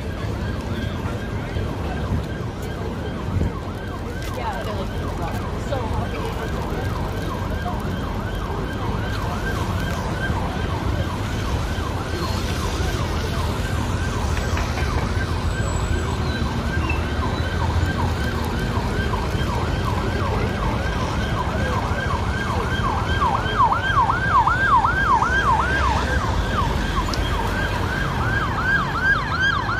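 Emergency-vehicle siren sounding a fast yelp, several rising-and-falling sweeps a second. It grows louder past the middle and is loudest about three-quarters through, over a steady low rumble of street traffic.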